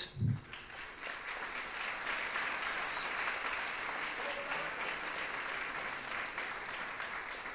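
Audience applauding: clapping that builds within the first second, holds steady, and thins out near the end.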